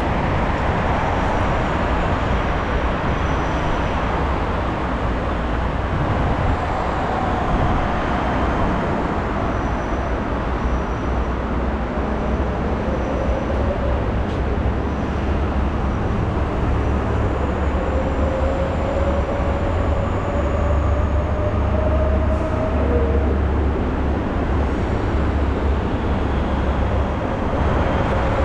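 Steady loud rumble of passing vehicles, with a faint whine that rises and falls around the middle.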